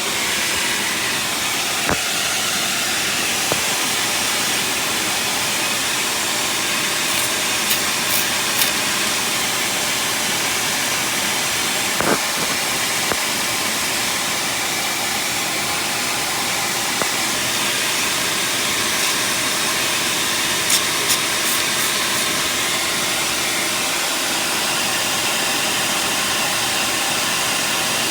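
Engine running steadily with a constant hiss from an exhaust leak, and a few short sharp ticks now and then.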